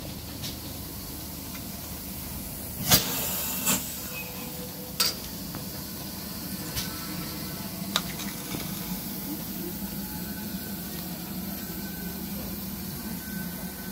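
Great Western Railway Small Prairie 2-6-2 tank steam locomotive No. 5526 standing in steam, giving a steady hiss over a low hum. A few sharp knocks break it, the loudest about three seconds in.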